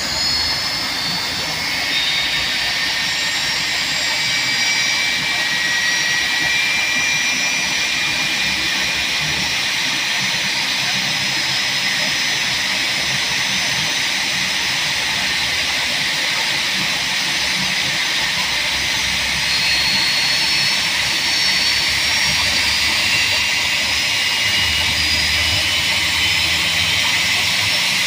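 Airbus A321 jet engine in a normal start on APU bleed air, with no ground air cart: high whining tones over a steady rushing noise, growing slightly louder about two-thirds of the way through.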